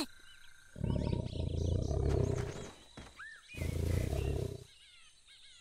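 Tiger growling twice in low growls, a longer one of about two seconds and then a shorter one about a second later.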